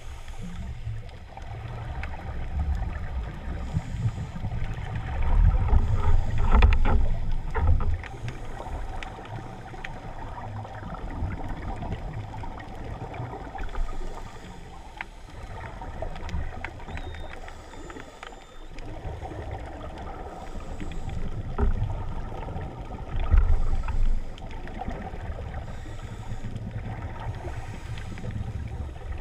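Muffled underwater rumble picked up through a camera's waterproof housing on a scuba dive. It swells louder twice, about five to eight seconds in and again around twenty-two to twenty-four seconds.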